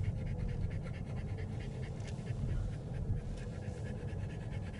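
French bulldog panting heavily and raspily in quick, rhythmic breaths, which starts as the car slows down. A low road and engine rumble from inside the car runs underneath.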